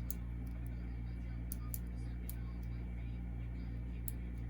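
Faint, sparse small clicks from the number wheels of a small combination padlock being turned by hand, over a steady low electrical hum.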